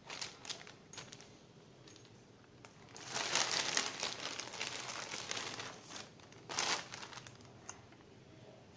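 Clear plastic packaging bag crinkling as hands rummage through it and pull parts out, with the loudest stretch of rustling about three seconds in and a short sharp crinkle near the seventh second.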